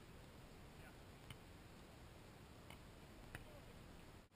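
Near silence with a faint steady hiss, broken by a few short, sharp slaps of a beach volleyball being hit in play, about a second in and again after three seconds. The sound drops out for an instant near the end.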